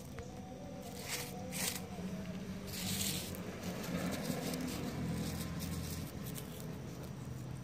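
Fingers pushing and rubbing through wet gem gravel close to the microphone: irregular gritty, squishy scrapes, loudest about a second in and around three seconds in, over a steady low hum.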